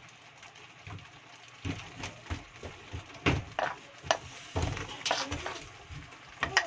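Cooking utensil scraping and clattering against a pan as fresh miki noodles and cabbage are tossed and stirred: a run of irregular knocks and scrapes starting a couple of seconds in.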